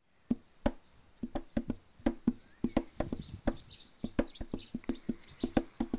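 Wooden percussion, like wood blocks, playing a quick, uneven rhythm of dry knocks, several a second, as a backing music track.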